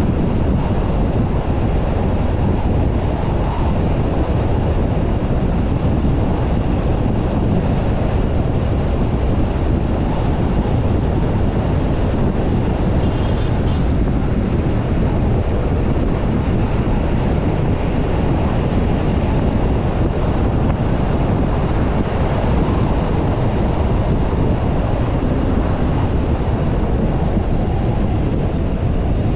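Steady low rumble of road and wind noise from a car cruising at speed, with no change in level throughout.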